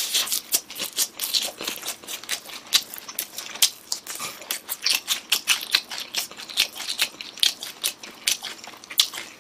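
Crisp fried chicken coated in cheese powder being bitten and chewed: a quick, irregular run of crunches.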